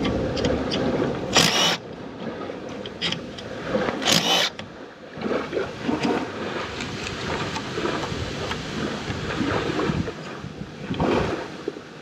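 Small metal clicks and two short, louder rattles, about a second and a half and four seconds in, as hand tools and camshaft bearing caps are handled on the open cylinder head of a Yamaha 115 four-stroke outboard. A background rumble runs under them and eases after the first second and a half.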